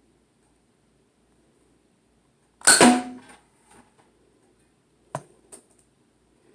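A Nerf foam-dart blaster firing: one loud sharp pop a little before the middle, dying away over about half a second with a brief ringing tone, followed by two sharper clicks near the end.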